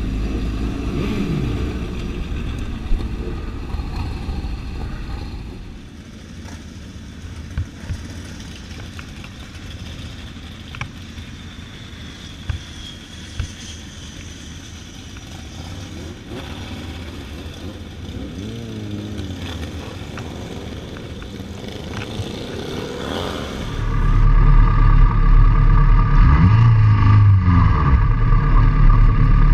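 Motorcycle engine running, its pitch rising and falling as it revs, with a few sharp clicks. Near the end the sound turns much louder, with a heavy low rumble.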